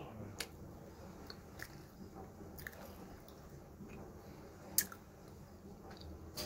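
A person chewing a mouthful of garlic bread, faint and close, with a few short crunchy clicks scattered through it; the sharpest comes a little under five seconds in.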